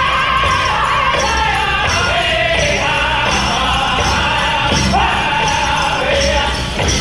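Powwow drum group singing a men's chicken dance song: high voices in unison over a steady bass-drum beat, with the voices going back up to a high note about five seconds in. The dancers' leg bells jingle along in time.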